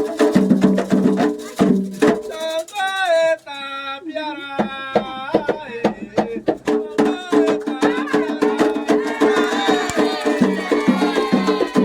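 Candomblé ritual music for Xangô: atabaque hand drums and a struck metal bell keep a rhythm, with singing. About two and a half seconds in, the drums drop out briefly while a single voice sings a held phrase, then the drumming comes back in under the singing.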